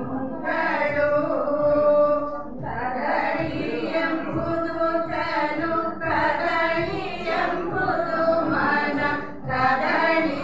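A group of women singing a song together in long, held phrases, with short breaks between lines.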